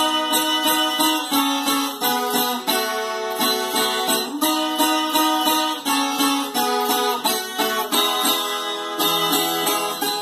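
Viola caipira, the Brazilian ten-string folk guitar, being played solo in quick picked notes, several to the second.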